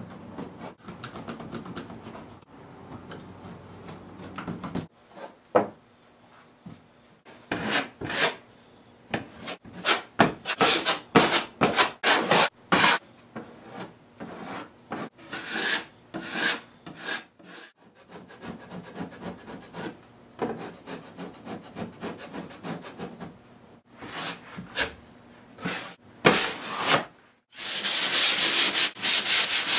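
A sharp drywall knife scraping faintly as it trims torn paper edges around a hole, then a wide metal taping knife scraping joint compound over mesh tape on drywall in many short strokes. Near the end comes hand sanding of the dried compound and tape fibres, loud and steady in rapid back-and-forth strokes.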